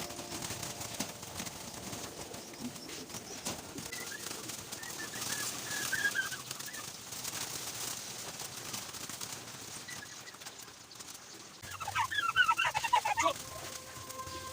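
Birds calling over a steady background hiss: a few faint chirps partway through, then a loud burst of rapid, squawking calls lasting about a second and a half near the end.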